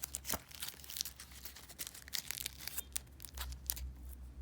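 Quick rustles and clicks of Pandemic board game cards being handled and sorted, busiest in the first three seconds and then dying away.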